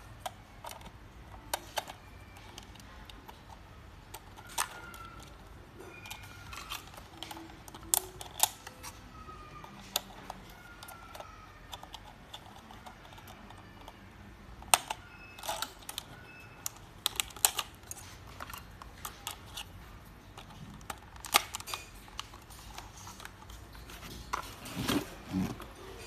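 Irregular sharp plastic clicks and small knocks as snap-on propeller guards are pushed onto the arms of an H168 folding mini drone, with light plastic rattling from handling the drone and the guards.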